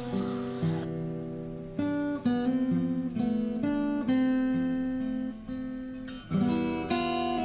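Background music: acoustic guitar playing a gentle run of chords, with a new chord struck every second or so.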